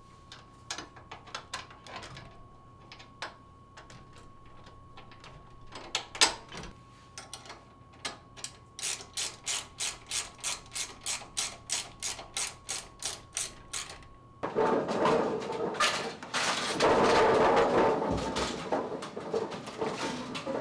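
Bowling pinsetter mechanism clicking and ratcheting: scattered clicks, then an even run of about three clicks a second. About two-thirds of the way through, the machine starts up into a loud, steady mechanical running noise.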